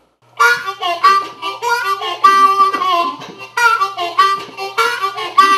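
Blues harmonica (blues harp) playing a riff of held and bent notes in several short phrases with brief breaks between them.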